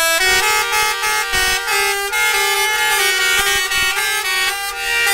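Tour bus's multi-tone musical air horn (a "telolet" horn) sounding loudly, playing a tune of held chords that shifts from note to note.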